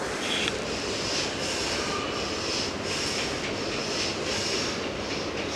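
Steady rumbling noise with a higher hiss that swells and fades about twice a second.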